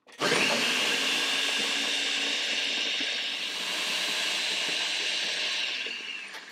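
Ninja countertop blender running, puréeing a jalapeño and cilantro green sauce: a steady motor whine that starts sharply and winds down near the end as it is switched off.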